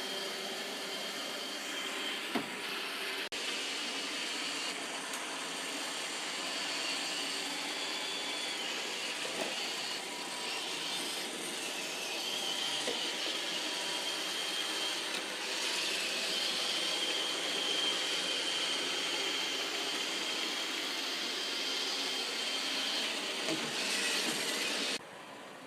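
iRobot Roomba 650 robot vacuum running: the steady whir of its vacuum motor and brushes with a high whine over it, and a couple of sharp knocks in the first few seconds. The noise drops off suddenly near the end.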